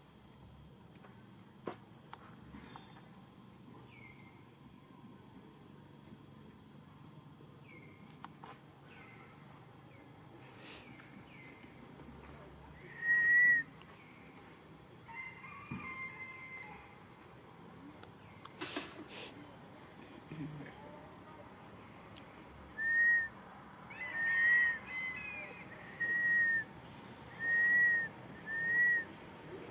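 A steady high-pitched insect drone, crickets or cicadas, with short, high, arching whistle-like animal calls: one about a third of the way in, then five in quick succession near the end.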